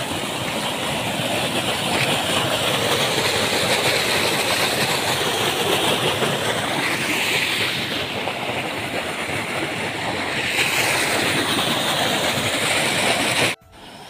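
Muddy water gushing fast through an opened drain in a paddy field's earthen bund, a loud, steady rush of white water as the flooded field is drained. It cuts off abruptly just before the end.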